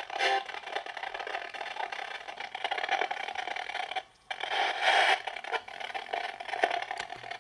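PolterPod spirit box sweeping through radio frequencies: continuous static broken by short chopped fragments of broadcast sound. It drops out briefly about four seconds in.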